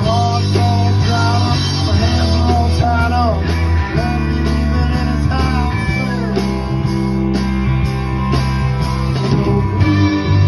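Live rock band playing with electric guitars, bass and drum kit. Sliding, bending lead lines sit over a steady bass and a regular drum beat.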